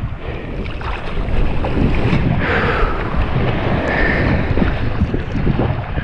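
Wind buffeting the microphone with a steady low rumble, over small waves washing in the shallows at the water's edge, with a brighter swish of water about halfway through.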